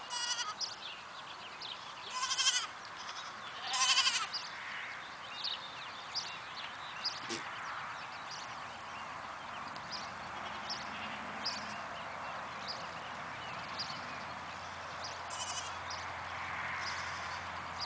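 Cashmere goat kids bleating: three loud, high bleats within the first four seconds and a shorter one later on.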